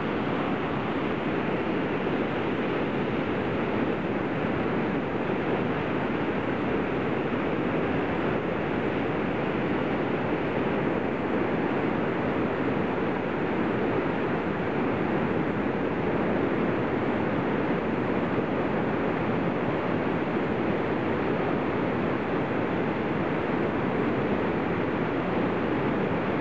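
Whitewater of the Waikato River surging through the narrow rock chute of Huka Falls: a steady, unbroken rush of fast water.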